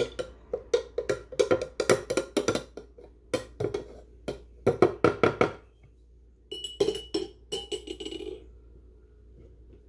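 Metal spoon clinking against the sides of a clear cup as a drink is stirred, in a quick run of knocks for about five seconds, then after a short pause a second, shorter run with a faint ring.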